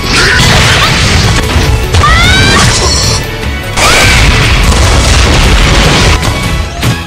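Fight-scene sound effects over music: loud booms, crashes and hits follow one another, with a few short swooping tones about two and four seconds in.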